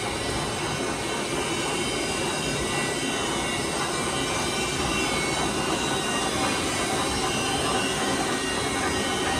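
Metal lathe running steadily, a continuous mechanical noise with no distinct strikes.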